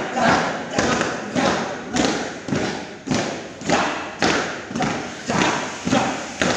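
A group stamping their boots on a concrete floor in unison, a steady rhythm of heavy thuds about twice a second.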